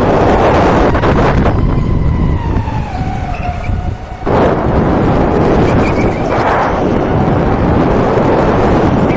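Electric go-kart's motor whining, its pitch rising and falling with speed, over loud rushing wind and tyre noise at the onboard camera. The noise dips briefly about four seconds in, then comes back up.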